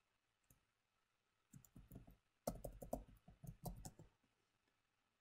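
Computer keyboard typing: faint key clicks in two runs, a short one about a second and a half in and a longer, denser one that stops about four seconds in.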